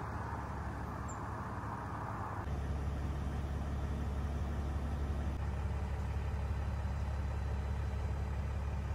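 A vehicle engine idling: a steady low hum that turns deeper and a little louder about two and a half seconds in.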